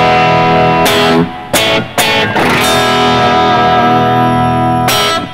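PRS SE electric guitar with a roasted maple neck playing ringing chords: a chord is struck again about a second in, a few quick strums follow, and a last strum near the end is cut short.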